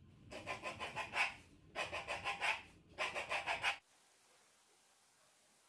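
A long knife sawing back and forth through a sheet of shortcrust pastry on the worktop, cutting thin strips: three quick runs of about five strokes each.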